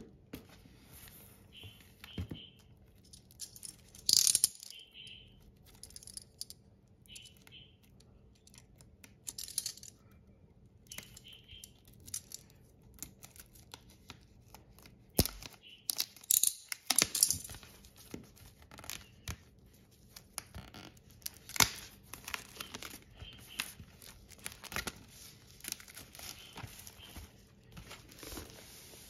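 Clear plastic shrink wrap being torn and peeled off a vinyl record jacket: irregular crinkling and tearing in bursts with short pauses between, loudest about four seconds in, around the middle, and again a few seconds later.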